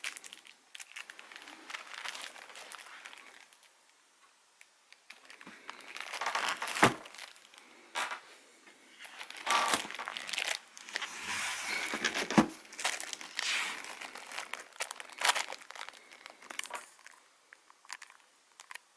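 Crinkling and rustling of a cardboard firework box and its packaging being handled close up, with several sharp knocks and clicks in the middle stretch.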